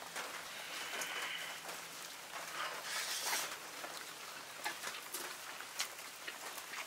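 Steady rain falling, an even hiss with scattered small drips and clicks.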